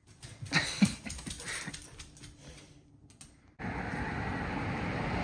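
A Welsh Corgi's claws tapping and scrabbling on the floor as it runs, a quick run of clicks, loudest about a second in. About three and a half seconds in, it gives way abruptly to a steady outdoor background noise.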